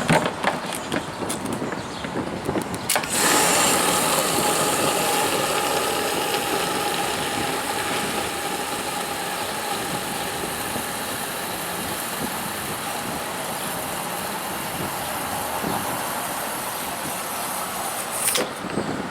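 Walker riding mower's engine running: irregular for the first few seconds, then coming on sharply to a steady full run about three seconds in, and stopping near the end.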